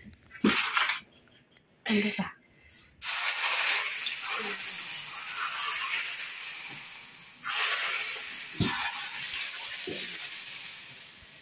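Hot oil poured from a pot onto raw minced chicken and onion momo filling, sizzling. The sizzle starts about three seconds in, surges again a little past the middle, and dies away toward the end.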